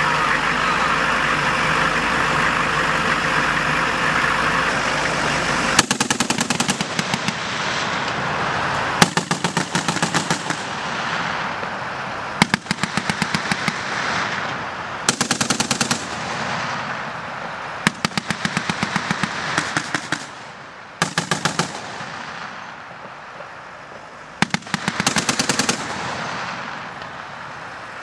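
A heavy military vehicle's engine runs steadily, then from about six seconds in, automatic machine-gun fire comes in about seven short bursts, each a second or so long, a few seconds apart.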